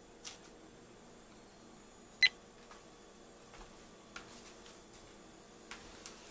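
A few light clicks and taps from utensils being handled over a mixing bowl, with one sharp, short ringing clink about two seconds in.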